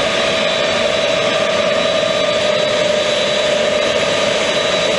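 Jet engines of a parked Lockheed C-5 Galaxy military transport running steadily, a constant rushing roar with a high steady whine over it.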